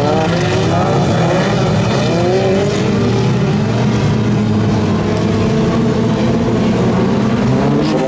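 Several front-wheel-drive autocross cars racing together on a dirt track, their engines revving hard with repeated rising notes. The engines overlap in a dense, steady din.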